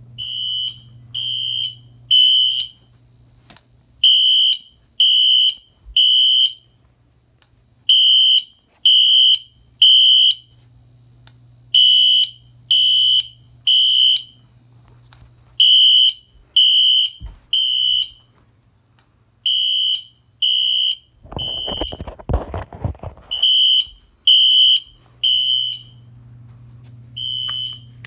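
Fire alarm horn-strobe sounding a temporal-three evacuation pattern: three short high-pitched beeps, a pause, and again, about every four seconds, set off by the pulled pull station of a homemade alarm system. A couple of seconds of rustling noise about three-quarters of the way through.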